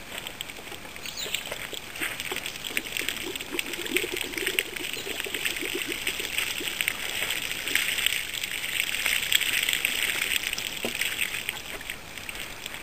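Water pouring and splashing out of a tipped plastic gallon jug onto a table, with the jug gurgling for a couple of seconds about three seconds in.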